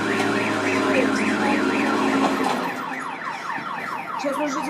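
Electronic siren or alarm warbling rapidly, about five cycles a second. About halfway through it switches to a slightly quieter run of short, repeated rising sweeps, about four a second.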